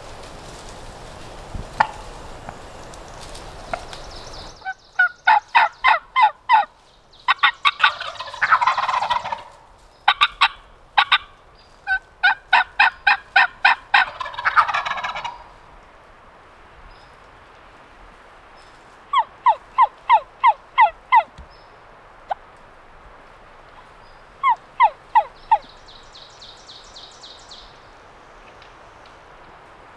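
Wild turkeys calling close by: several runs of sharp yelping notes, about five a second, with two longer, noisier calls, gobbles, around eight and fourteen seconds in.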